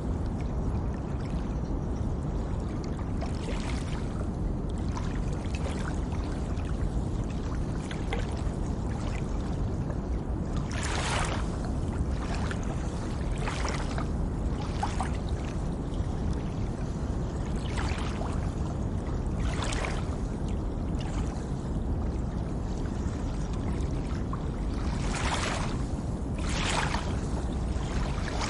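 A steady, deep rush of pink noise under gentle water sounds: soft swishes of water lapping or sloshing every second or two, a few of them louder.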